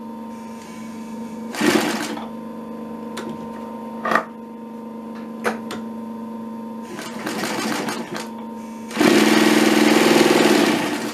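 Pfaff 335 cylinder-bed industrial sewing machine binding leather with tape. Its motor hums steadily while the machine sews a few short bursts of stitches. Near the end it runs continuously for about two seconds.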